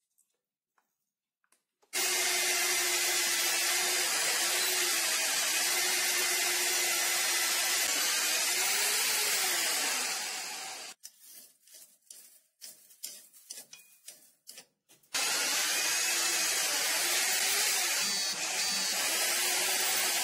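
Rotary hammer running in drill-only mode, driving a twist drill in a homemade lathe-mounted drilling head as it bores into a metal disc. The motor starts about two seconds in and runs steadily, its pitch wavering under load. It stops about halfway through with a few short stuttering bursts, then runs steadily again.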